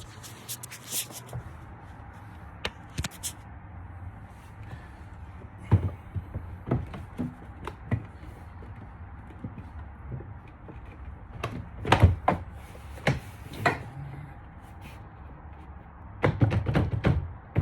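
Scattered clicks, knocks and thumps of an interior car door panel's plastic clips being pushed into the slots in the door, with quick runs of knocks about twelve seconds in and again near the end.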